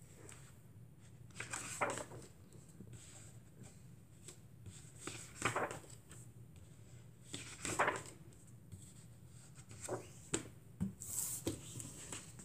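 Pages of a large hardcover comic album being turned and handled: faint, short paper rustles and soft knocks a few seconds apart, with a louder rustle near the end as the book is moved.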